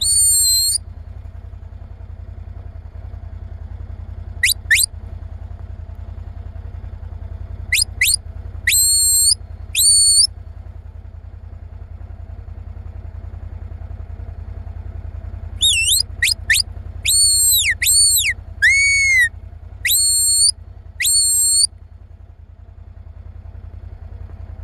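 Herding whistle commands to a Border Collie working cattle: short, loud, high-pitched blasts and rising or falling chirps. There is one blast at the start, a few more through the first ten seconds, then a rapid string of commands near the end. A steady low rumble runs underneath.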